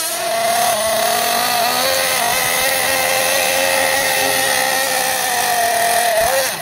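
Team Associated MGT 8.0 monster truck's nitro two-stroke glow engine running at high revs, a steady high-pitched whine held for several seconds that drops away near the end.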